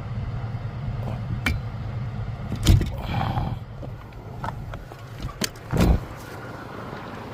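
Tools and parts being handled under a car's dashboard: a few sharp knocks and clicks, two of them loud, over a low steady hum that fades about four seconds in.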